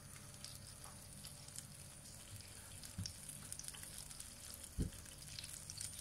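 Faint sizzling and crackling of a small puddle of oil heating in a non-stick frying pan over a gas burner, with a short low thump just before five seconds in.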